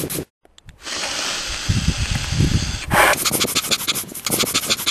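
Rapid panting close to the microphone, about four or five quick breaths a second, starting about three seconds in after a low rumbling noise.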